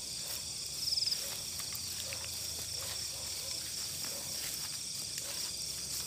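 Night chorus of crickets chirring steadily, with one trill standing out briefly about a second in.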